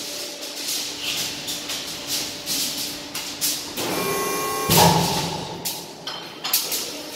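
Zhenli ZLC220 brass cold chamber die casting machine at work: a run of sharp clanks and short hissing bursts, with a brief steady whine about four seconds in and the loudest burst right after it.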